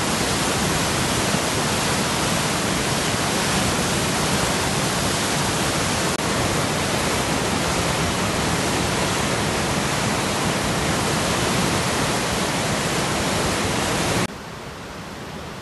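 Muddy floodwater of a river in spate rushing past in a loud, steady roar. About a second before the end it drops suddenly to a quieter, more distant rush.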